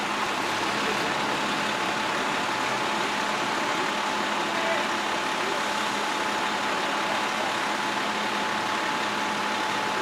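A vehicle engine running steadily, with a constant thin whine over a broad hiss.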